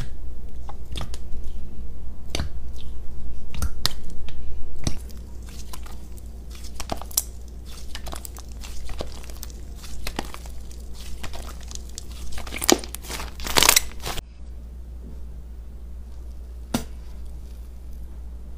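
Hands pressing, poking and stretching slime: a run of sticky clicks, pops and crackles, denser and louder for the first five seconds, then sparser, with a burst of crackling a little past the middle. A steady low hum runs underneath.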